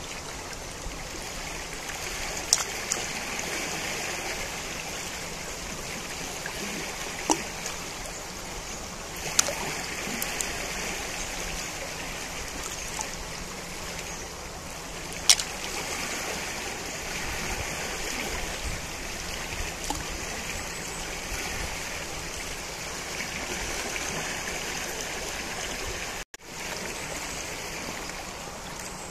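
Najerilla river flowing, a steady rush of water with a few brief sharp clicks. The sound cuts out for an instant near the end and comes straight back.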